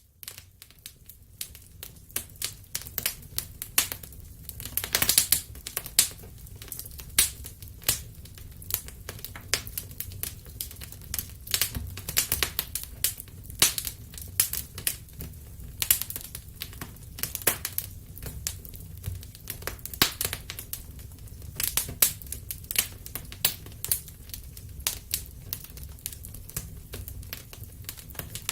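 Wood fire burning in a fireplace: irregular sharp crackles and pops, several a second with louder snaps every second or so, over a low steady rumble of the flames.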